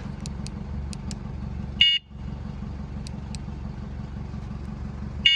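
Two short electronic beeps from the headlight's built-in horn, one about two seconds in and a longer one near the end, over a steady low hum.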